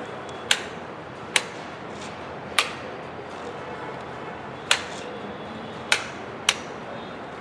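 Computer mouse clicking: six sharp single clicks at uneven intervals, over a steady low hiss of room noise.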